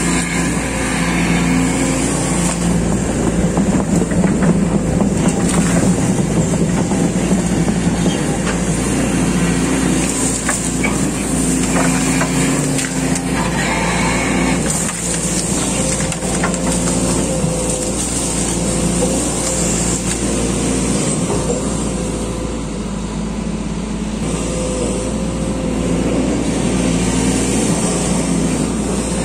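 Diesel engine and hydraulics of a SANY SY215C crawler excavator running steadily under load while it digs. The level stays steady, with scattered light crackles.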